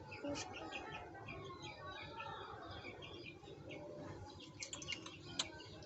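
A baby chick peeping: a run of faint, short, high chirps in the first half, then a few sharp clicks near the end.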